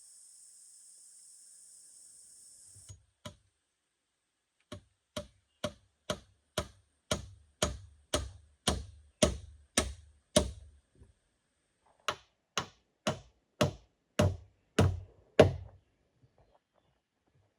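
Two runs of steady blows on wood, about two knocks a second, with a short pause between the runs. Before them a steady insect buzz cuts off abruptly about three seconds in.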